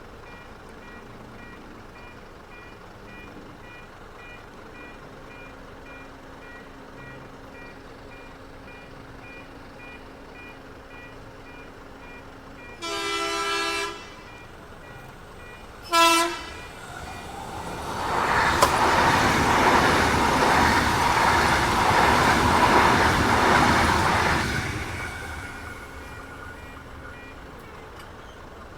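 Level crossing warning bells ringing at an even pace. A train horn sounds a blast of about a second, then a short toot a couple of seconds later. The train then rushes through the crossing at speed for about seven seconds, the loudest sound, and fades away.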